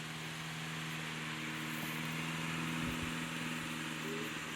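Retro-style Hunter electric desk fan running on high with its oscillating mechanism engaged: a steady motor hum over rushing air, growing slightly louder. The motor bogs a little under the oscillation, which the owner puts down to only one of its bearings having been oiled.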